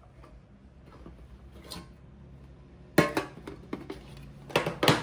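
A small tin box handled on a desk: a sharp clack about three seconds in, then a quick cluster of clicks and knocks near the end.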